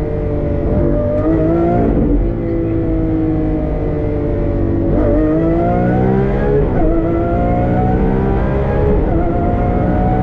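Lamborghini Aventador SVJ's 6.5-litre V12 with a Gintani exhaust, heard from inside the cabin, running at an even pitch in second gear for the first few seconds, then accelerating hard. Its pitch climbs and drops twice, at about seven and nine seconds, on quick upshifts into third and fourth, then climbs again.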